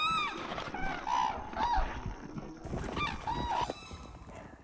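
Red-crowned cranes calling: a run of short, arching honking calls from several birds, overlapping in the first few seconds and thinning out near the end.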